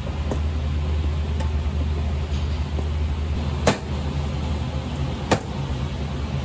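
Filled aluminium chiffon tube pan tapped twice on a stainless steel counter, two sharp knocks about a second and a half apart, to knock the large air bubbles out of the batter. A steady low hum runs underneath.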